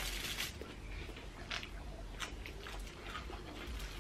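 People chewing and eating food with their hands: scattered short clicks and mouth sounds, with a brief hissing rustle at the start.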